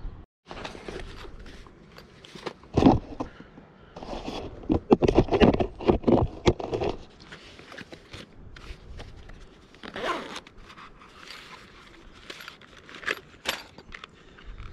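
Zips being pulled open and closed, with rustling and scraping as camping kit is handled and unpacked from a bag, in irregular bursts.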